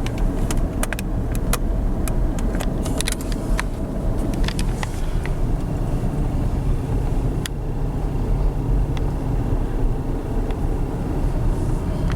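A car driving along a road: a steady low rumble of road and engine noise, with scattered sharp clicks and ticks in the first few seconds.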